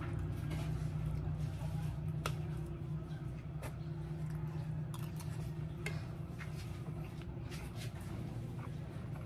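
Metal spoon and fork tapping and scraping on a plate in short, scattered clicks over a steady low hum.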